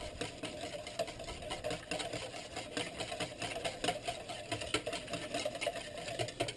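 Wire whisk beating eggs and milk in a stainless steel bowl: a rapid, rhythmic clatter of the wires against the metal.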